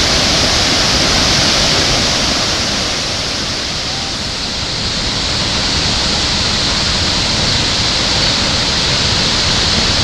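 Victoria Falls: the steady, loud rush of the falling water, dipping slightly about four seconds in.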